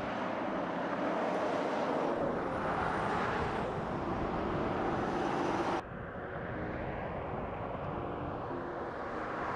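Traffic on a highway: a steady rush of tyre and engine noise from vehicles driving past. The sound changes abruptly about six seconds in, losing its hiss.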